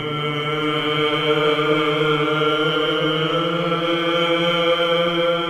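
Male choir singing Byzantine chant in the first mode, the voices holding a long steady note over a sustained drone.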